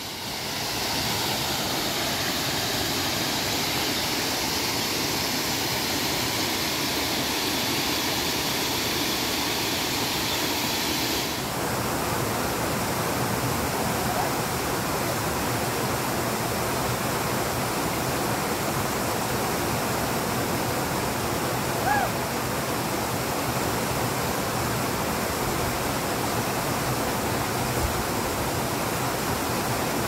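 Waterfall: a steady rush of falling water, its tone shifting slightly about eleven seconds in.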